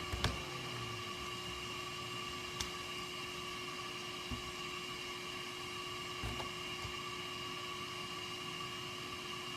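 Ziggy 1000 W smoke and particle extractor running steadily: an even blower rush with a constant hum and whine, and a few light clicks along the way.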